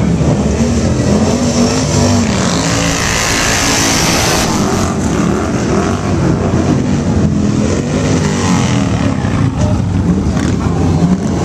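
Motorcycles, V-twin touring and cruiser bikes, riding past one after another at low speed, their engines rumbling with pitch rising and falling as each bike revs and goes by. A rush of hiss comes in about two seconds in and stops about four and a half seconds in.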